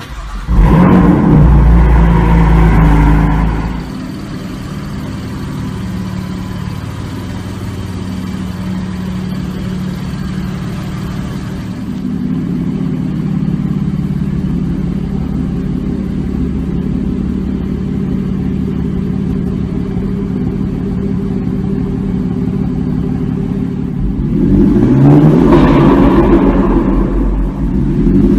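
BMW M4's twin-turbo straight-six fires up with a loud start-up flare, then settles into a steady idle. It is revved near the end, with quick rising blips.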